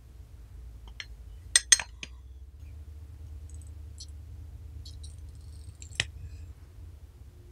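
Sharp clicks and light clinks of a handheld garlic press being handled while loaded with sea-buckthorn berries. The loudest is a quick double click about a second and a half in, with another click about six seconds in and faint ticks between.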